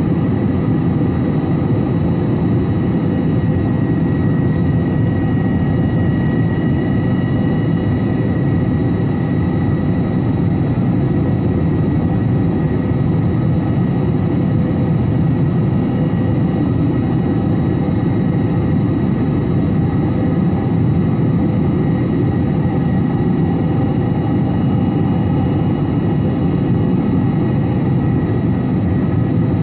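Steady in-flight noise of an Airbus A321-211 airliner: a constant rush of engine and airflow noise with a few faint, steady whining tones above it.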